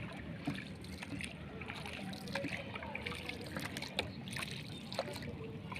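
Water splashing and lapping around a small boat moving through floodwater, with a few sharp knocks and faint voices in the background.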